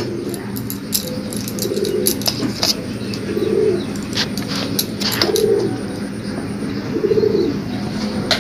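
A pigeon cooing over and over: a short, low, warbling coo about every second and a half to two seconds, four times. Faint clicks and knocks of kitchen things being handled are heard between the coos.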